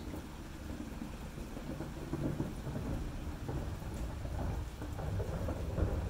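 Steady rain with a low rumble of distant thunder that builds from about a second and a half in.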